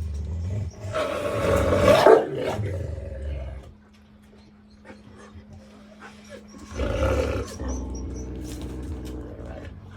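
Wolfdog growling and snarling while guarding its food: a low rumbling growl, a loud harsh snarl about a second in, a quiet spell, then another snarl near seven seconds that trails off into a lower growl.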